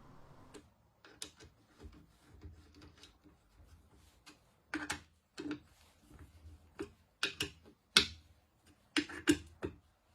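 A series of irregular light clicks and knocks, sharper and louder ones about halfway through and in a quick cluster near the end.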